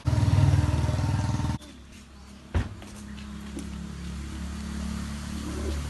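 A motor engine's low hum, loud for the first second and a half and then cutting off abruptly, followed by a single knock and a fainter steady hum that slowly grows louder.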